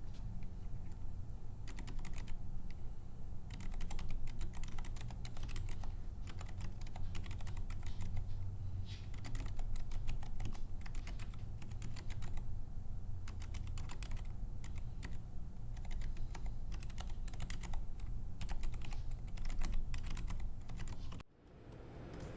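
Typing on a mechanical keyboard fitted with Aqua Zilent 67g silent tactile switches: a quick, uneven run of keystrokes with short pauses. It stops abruptly about a second before the end.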